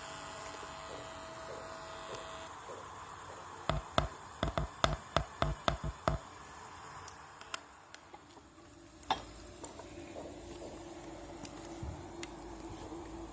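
A quick run of about ten sharp knocks over two or three seconds, then a single knock, followed by a faint steady hum.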